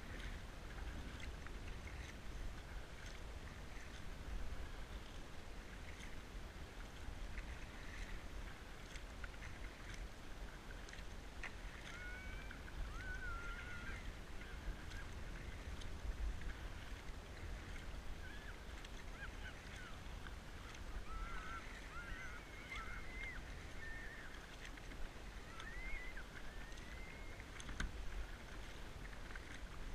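Kayak paddled over calm water, with wind rumbling on the microphone. From about halfway through, birds give a run of wavering calls.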